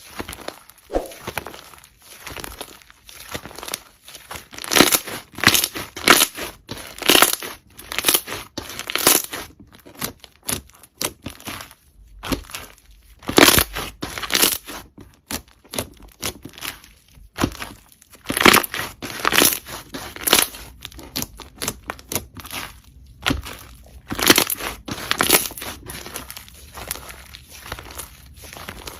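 Slime being squeezed, stretched and pressed by hand, giving quick, irregular runs of sticky clicks and pops with short pauses between handfuls.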